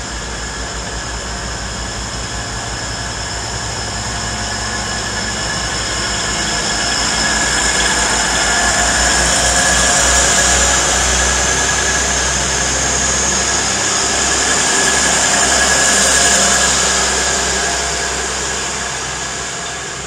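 Diesel multiple unit pulling away from a station platform, its underfloor diesel engines working under power. The engine sound swells to a peak about halfway through, rises again a little later, then eases off near the end.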